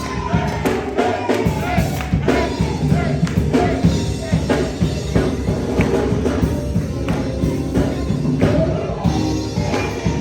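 Gospel music: voices singing over a steady beat, with tambourine and drums.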